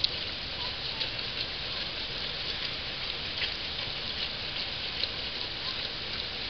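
Heavy rain falling steadily, an even hiss with now and then a single louder drop ticking.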